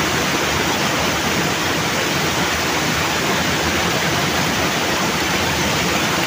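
Water from a small concrete irrigation dam, full to overflowing, pouring over its weir in a thin sheet and splashing onto the rocks below: a steady, unbroken rushing.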